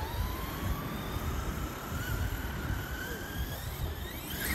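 Electric motor and drivetrain whine of a Team Redcat MT8E BE6S 1/8-scale RC monster truck, its pitch rising steadily as the truck speeds up and climbing sharply near the end. Wind rumbles on the microphone underneath.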